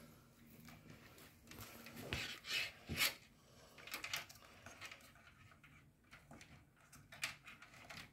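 Cables being handled and tucked inside a PC case: irregular light rustles and small plastic clicks, loudest about three seconds in.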